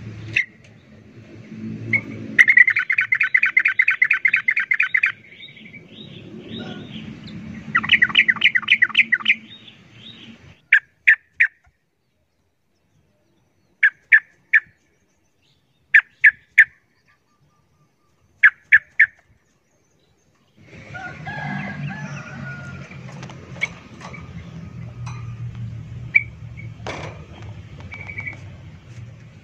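Yellow-vented bulbul chattering: two bursts of fast repeated notes in the first ten seconds, then a handful of short separate chirps.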